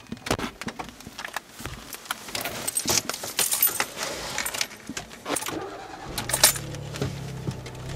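Car keys jangling and clicking. About six seconds in, a car engine starts and settles into a steady low running hum.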